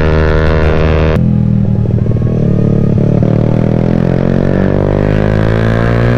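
Yamaha Y15ZR's single-cylinder four-stroke engine running through an aftermarket CJ Ipoh exhaust under way. The engine note is high and steady, drops suddenly about a second in as at a gear change, then climbs steadily as the bike accelerates.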